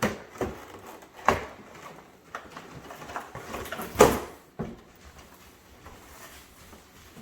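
Packaging and the plastic body of an RC truck being handled. There are a few sharp clicks and knocks with rustling between them, and the loudest knock comes about four seconds in.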